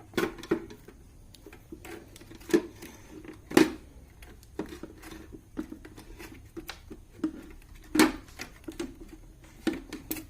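Irregular clicks and light knocks of plastic and metal being handled as the battery is taken out of a UPS battery backup unit's casing, with a few sharper knocks about two and a half, three and a half and eight seconds in.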